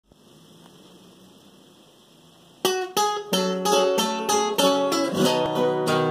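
Faint hiss at first, then about two and a half seconds in a nylon-string classical guitar starts fingerpicking the song's opening, a quick run of plucked notes.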